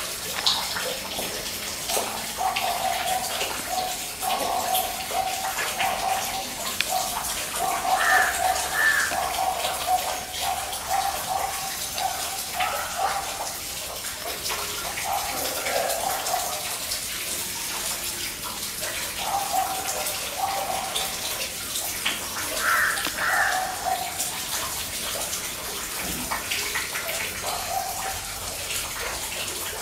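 Domestic hens clucking in short, repeated low calls, with a few sharper two-note calls, over a steady hiss like running water.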